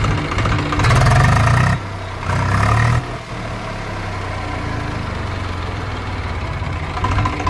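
Swaraj 735 FE tractor's three-cylinder diesel engine running steadily, revved twice briefly about a second in. It runs without the earlier knock, after a new cylinder liner, piston and rings were fitted.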